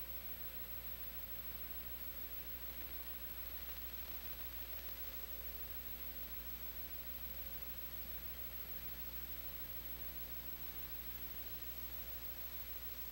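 Steady hiss with a low mains hum and a faint high-pitched whine: the empty audio track of an old videotape carrying no program sound.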